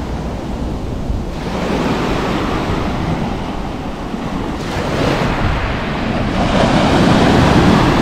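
Sea surf breaking and washing up a pebble beach, coming in surges with the loudest near the end, with wind rumbling on the microphone.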